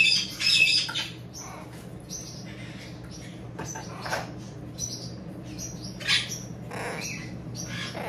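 Pet parrot squawking harshly twice in the first second, then quieter with scattered short chirps and clicks.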